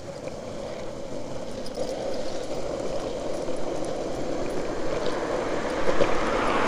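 Longboard wheels rolling on asphalt at speed, a steady rumble that grows gradually louder as the board picks up speed.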